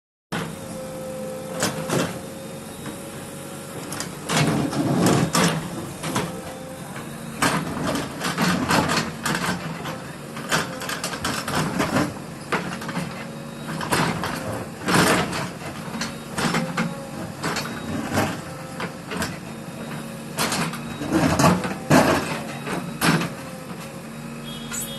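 Irregular knocks and clatter, some in quick clusters, over a steady low machine hum.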